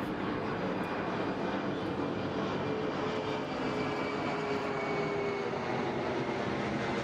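A steady droning hum with a faint tone that slowly falls in pitch.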